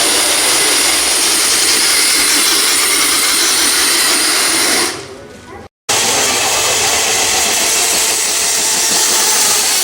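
Small RC truck engine running hard at high revs, a steady high-pitched buzz. It fades out about five seconds in, breaks off completely for a moment, then comes back just as loud.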